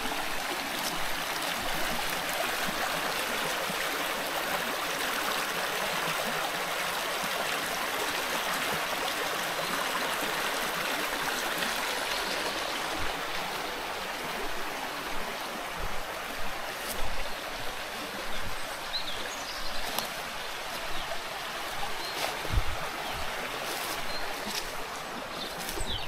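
Small rocky mountain stream rushing and gurgling over stones, a steady water noise that eases somewhat about halfway through. A few short knocks sound over it in the second half.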